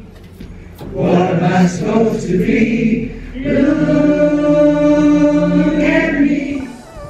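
A choir singing, the sound of a video installation of many singers' faces on a row of screens. A sung phrase begins about a second in, and a long chord is held through the middle before fading out near the end.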